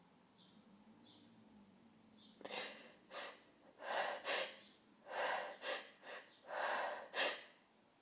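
A woman's short, sharp gasping in-breaths, about nine in quick succession starting a couple of seconds in: the build-up to a sneeze brought on by chhinkni, a herbal sneezing powder, with the sneeze not coming.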